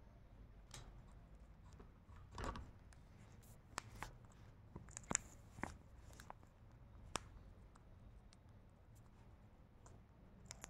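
Rose-ringed parakeet biting into a green chilli with its beak: a short rustle about two seconds in, then a few scattered sharp, crisp clicks.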